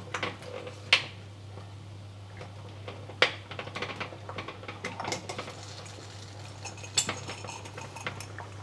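Glass jars and metal tongs clinking and knocking against a stainless steel pot of boiling water: a few separate sharp clicks over a steady bubbling hiss.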